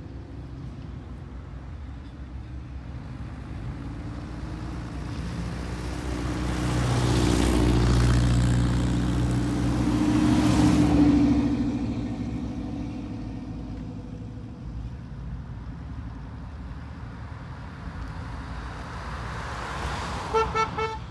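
A car driving past with its engine rumble building over several seconds and then fading away. Near the end a car horn gives three short toots.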